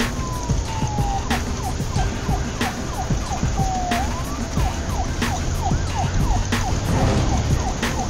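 A siren: a long falling wail, then rapid repeated yelps about three a second, over a low steady rumble, with a sharp tick about every second and a quarter.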